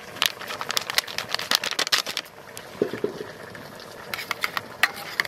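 A spatula stirs milk powder into liquid in a small steel bowl. It taps and scrapes against the metal in quick, irregular clicks, thick in the first two seconds, sparser after, and bunched again about four seconds in.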